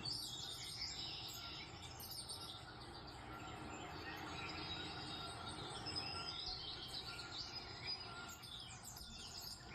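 Faint bird-like chirping: many short, quick chirps repeating over a steady background hiss.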